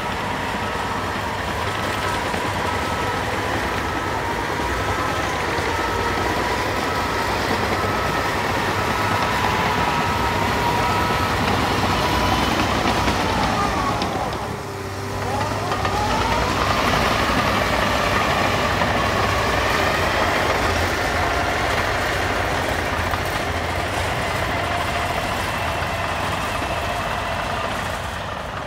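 Caterpillar 953D track loader's diesel engine running as the machine moves about, with a backup alarm beeping steadily for the first ten seconds or so. About halfway through, the engine speed drops and then climbs again.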